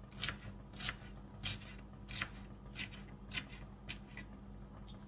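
Small paring knife chopping a red onion on a plastic cutting board: about seven evenly spaced cuts, one every half second or so, the blade knocking the board with each stroke and easing off after about four seconds.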